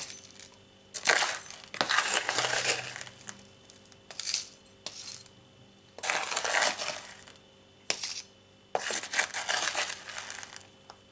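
A gritty pumice and akadama potting mix being scooped and poured into an orchid pot, in about five separate rattling pours.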